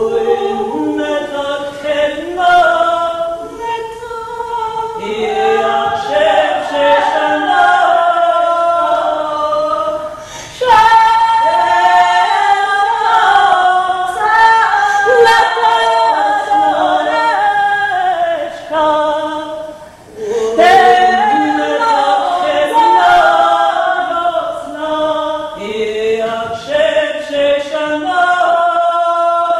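Several voices singing together without instruments, in a choir-like a cappella texture, with brief breaths or pauses about ten and twenty seconds in.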